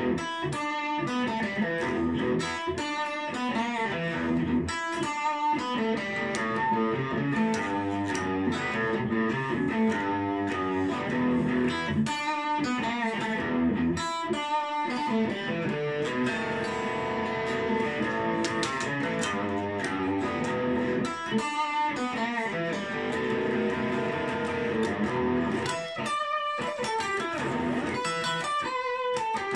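Solo solid-body electric guitar playing a boogie: picked notes and chords in a steady, rhythmic groove.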